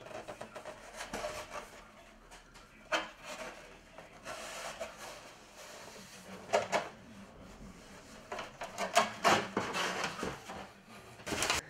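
Cardboard and brown packing paper rustling and scraping as a model ship hull and box panels are handled and lifted out of a cardboard box, with a few sharp knocks and bumps.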